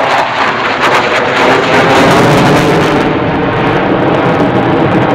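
F-22 Raptor's twin jet engines at high power in a hard-pulling turn: loud, ragged jet noise with crackle. About three seconds in, the sharpest crackle fades and a duller steady jet noise carries on.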